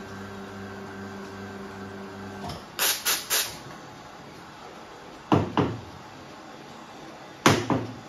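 Expobar Carat espresso machine humming steadily, the hum stopping about two and a half seconds in. Then come three quick blasts of steam as the steam wand is purged into a cloth, and two pairs of sharp knocks, one near the middle and one near the end.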